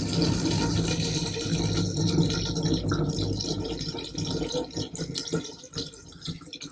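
Windshield washer fluid poured from a gallon jug into a 2011 Ford Escape's washer reservoir, a steady splashing pour that gets quieter near the end.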